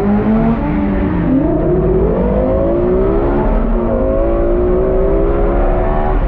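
Lexus LFA's V10 engine revving up and easing off: the pitch drops briefly, climbs steadily for a couple of seconds, dips, then rises again near the end.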